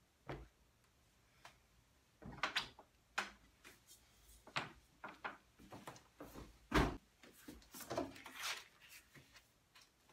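A hinged screenprinting frame and paper being handled: a string of light knocks and rustles, with the loudest thump about seven seconds in.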